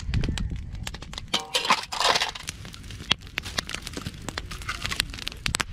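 Campfire crackling, with irregular sharp snaps and pops of burning wood over a low rumble.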